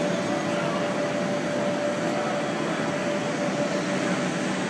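Steady background din of a large exhibition hall: a constant hum and hiss, with one faint steady tone running through it.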